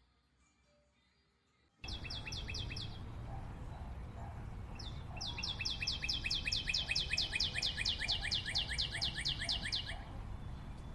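A bird chirping in runs of quick, short falling notes, over steady low background noise. The sound starts about two seconds in after near silence. A brief run of chirps is followed from about five seconds in by a long, rapid series of about five notes a second, which stops near the end.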